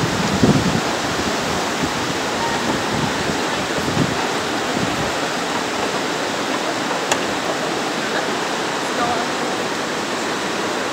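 Fast-flowing river rushing through a narrow gorge: a steady, even wash of water noise, with a couple of low thumps near the start and about four seconds in.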